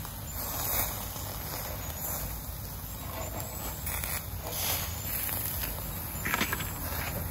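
Chicken kebabs on metal skewers sizzling over a charcoal grill: a steady hiss with a low rumble underneath.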